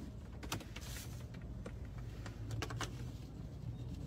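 Low steady hum of a car cabin with a scatter of faint sharp clicks, one about half a second in and a few more between about one and a half and three seconds in.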